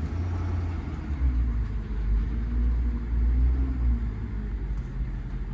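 Inside the cab of a Ford F-550 under way, its 6.7 Power Stroke V8 turbo-diesel running: a steady low rumble of engine and road. A faint engine note climbs and then eases off through the middle.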